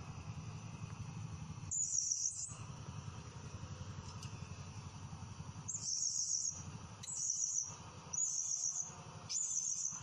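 Male blue-crowned hanging parrot giving five sharp, shrill calls, each a rapid trill lasting under a second, the first about two seconds in and the other four in quick succession near the end, over a steady low hum.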